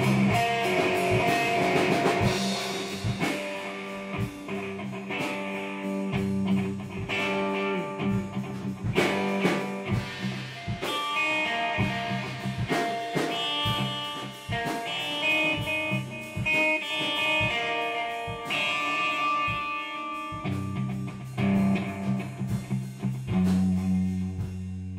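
A rock band jamming: electric guitar playing changing notes and chords over a drum kit.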